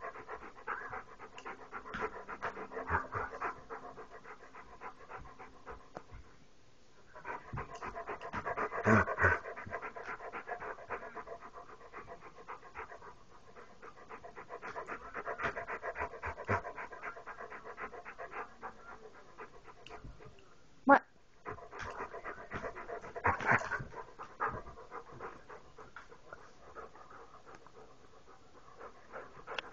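A dog panting rapidly with its mouth open, in several bouts separated by short lulls. A single sharp click sounds about two-thirds of the way through.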